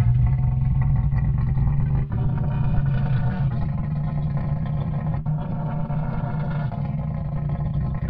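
A deep, rasping animal growl-rumble presented as an imagined Triceratops call. It is continuous, with a strong low hum and overtones above it, and dips briefly about two and five seconds in.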